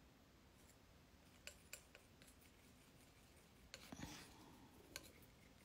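Faint clicks and scrapes of a metal palette knife mixing oil paint on a palette, with a longer scrape about four seconds in.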